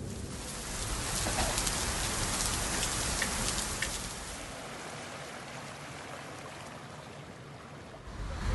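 Steady rain falling, starting suddenly and heavier for the first four seconds or so, then lighter.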